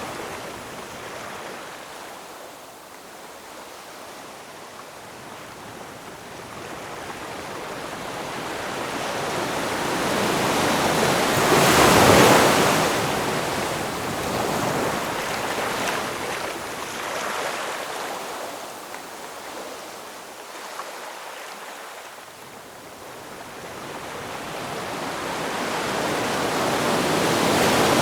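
Ocean waves washing ashore: the surf swells slowly to a crash about twelve seconds in, ebbs, then builds again to another crash near the end.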